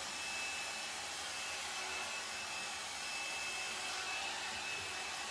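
L'ange Le Volume hot-air brush blowing steadily on its cool setting, a constant rush of air with a faint high whine, used to set the lifted hair at the crown.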